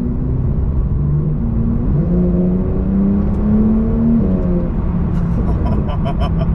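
Porsche 911 Turbo S (992) twin-turbo flat-six heard from inside the cabin while driving. The engine note climbs for about two seconds as the car accelerates, drops at a gear change, then holds steady.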